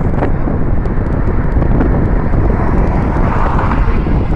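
Steady road and wind noise from a car driving along a highway, with wind rumbling on the microphone; a passing vehicle swells briefly about three and a half seconds in.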